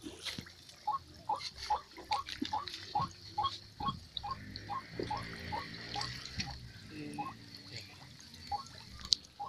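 An animal call of short notes repeated evenly, about three a second, over sloshing water in the middle of the stretch.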